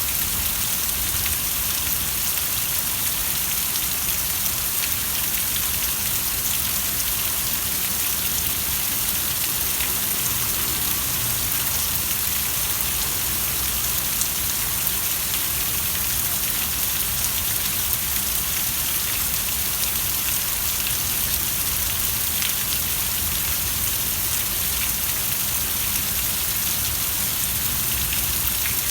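Steady rain falling, an even hiss of drops with scattered faint ticks of individual drops landing.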